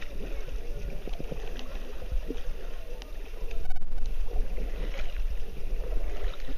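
Water lapping and splashing around a floating inner tube, over a steady low rumble on the microphone, a little louder about four seconds in.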